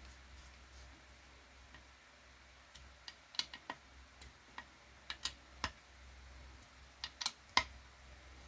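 Scattered light clicks and ticks of a hand hex driver turning a screw into a carbon-fibre chassis plate and battery bracket, irregular and bunched from about three seconds in to near the end.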